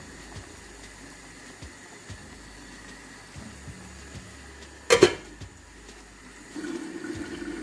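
Small-fish curry simmering in a frying pan with faint bubbling. About five seconds in, a stainless-steel lid clatters down onto the pan with a short metallic ring.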